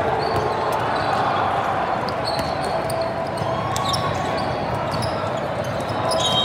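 Steady din of a large hall full of volleyball play: a background of many voices, with repeated sharp thuds of balls being hit and bouncing on the courts.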